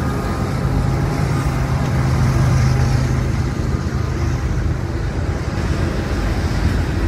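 Florida East Coast freight train's cars rolling past a grade crossing: a steady low rumble, with a low hum that eases off about halfway through.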